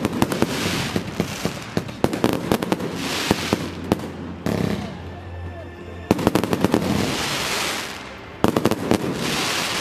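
Fireworks going off close overhead: a dense run of sharp bangs, with stretches of crackling hiss from the bursting stars.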